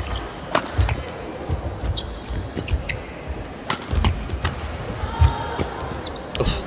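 Badminton singles rally: sharp cracks of the shuttlecock off the rackets, among them a smash, with shoes squeaking on the court mat and the thuds of lunging footwork.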